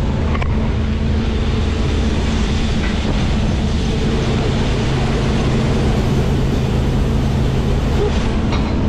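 New Holland CX5090 combine harvester running steadily under load, its engine hum mixed with the loud clatter and rush of the threshing machinery.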